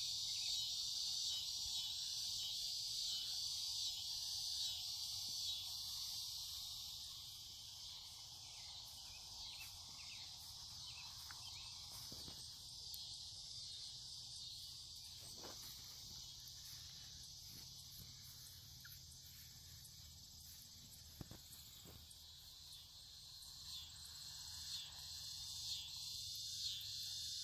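Summer insect chorus: a steady, finely pulsing high trill, louder at the start and again near the end, with a few faint clicks.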